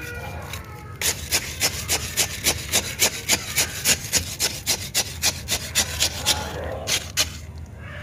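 A sharpened wooden stick scratching and raking through the gritty cinder potting mix in a terracotta pot, in quick repeated scraping strokes about four or five a second. The surface is being loosened so that air reaches the roots. The strokes thin out and stop about three-quarters of the way through, with a couple more near the end.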